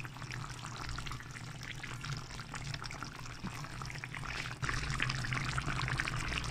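Hilsa fish curry with pointed gourd and potato simmering in a pan, its gravy bubbling and crackling steadily over a low hum; it gets a little louder past halfway.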